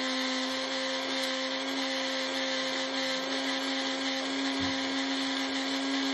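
A household appliance running with a steady whirring drone over a constant hum.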